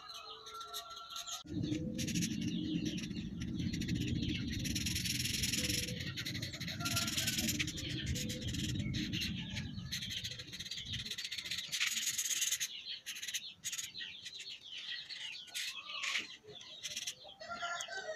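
Birds chirping in the background. From about a second and a half in until about eleven seconds, a low, dense scrubbing noise of a felt-tip marker rubbing back and forth on paper.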